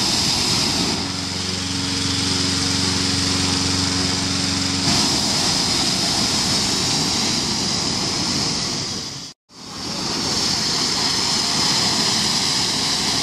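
A petrol-engine inflator fan running steadily, blowing air into a hot-air balloon envelope laid out on the ground: a loud, even rushing noise with an engine hum. The sound cuts out for a moment about nine seconds in, then carries on the same.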